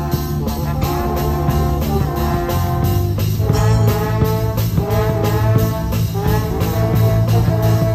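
A school brass band plays live: a trombone carries the melody with held notes over a steady drum-kit beat and the rest of the band.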